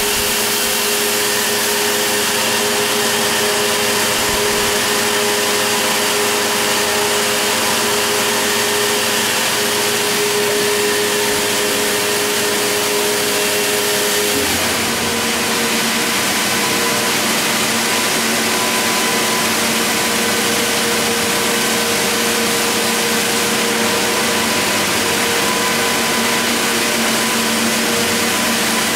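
Circular knitting machines running: a loud, steady mechanical whir and hiss with several steady hum tones. The pitch of the hum changes about halfway through.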